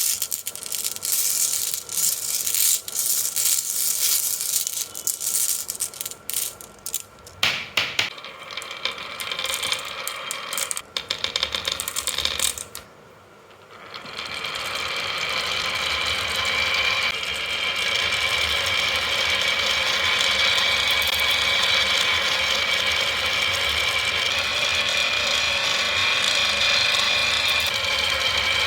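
Marbles clattering and clicking down a HABA wooden marble run in a fast, irregular run of knocks. About halfway through the clatter stops and gives way to a steady whirring.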